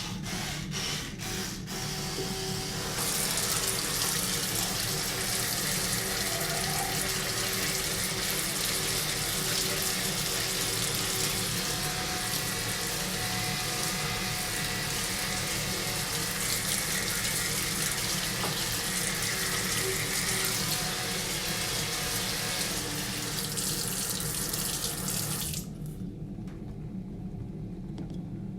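Electric toothbrush motor buzzing steadily while a bathroom tap runs water into a sink. The water stops about three seconds before the end, leaving the toothbrush buzz.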